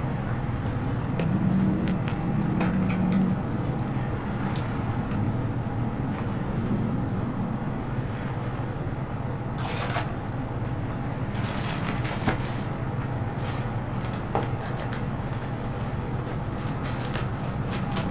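Clear plastic wrap crinkling and rustling as it is handled, in short crackly spells, the busiest about ten to thirteen seconds in. Under it runs a steady low hum.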